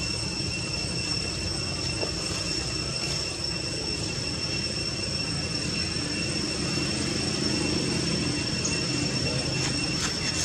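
Steady outdoor background noise: a low, even rumble under a constant high-pitched whine, with no animal calls standing out.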